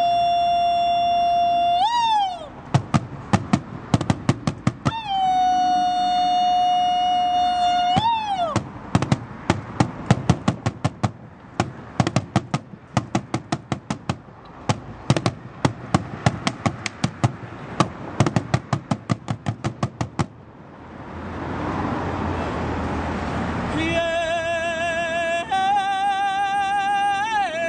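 A man sings long, held high notes that flick upward at their ends, alternating with sticks striking a large hide-topped drum. The drumming becomes a long run of steady strikes, about three a second. Near the end he sings a line with a wavering vibrato.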